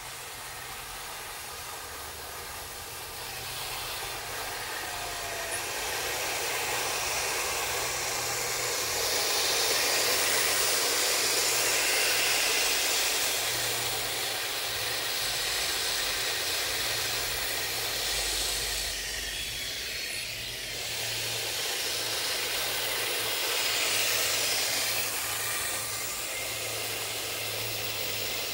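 Radio-controlled model M41 Bulldog tank driving over grass: a steady low hum with a loud hiss over it that swells twice, about a third of the way in and again near the end.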